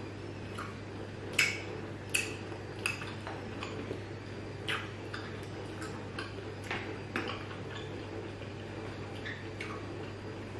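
Close mouth sounds of people chewing gummy candy: irregular wet clicks and smacks, one or two a second, over a low steady hum.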